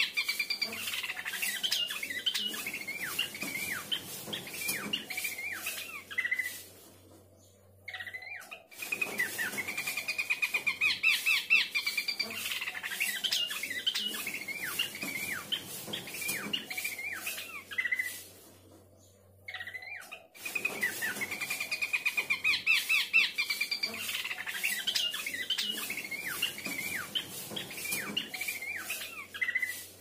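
Pelanduk semak (Horsfield's babbler) singing: each bout opens with a fast rattling trill and runs on into quick up-and-down notes, with two pauses of about two seconds between bouts.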